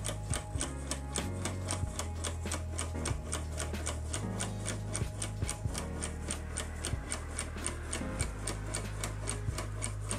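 3D-printed plastic tourbillon's escapement ticking rapidly and evenly, about five ticks a second, over a low hum that shifts in pitch every second or two.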